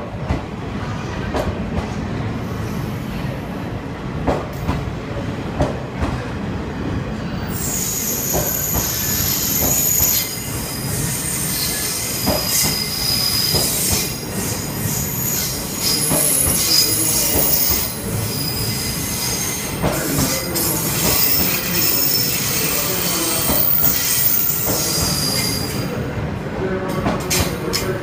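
Blue JR 24-series sleeper coaches pulling out of the station past the platform, wheels rumbling and knocking over the rail joints. A high-pitched wheel-flange squeal on the curve sets in about a quarter of the way through and stops shortly before the end.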